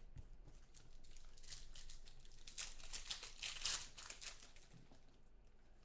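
Foil wrapper of a Contenders football card pack crinkling and tearing as it is ripped open by hand, loudest about three to four seconds in.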